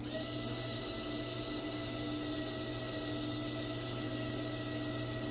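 Small electric motor of an RC4WD Warn 1/10-scale scale winch running steadily, an even whine with a few steady tones that starts abruptly at the outset.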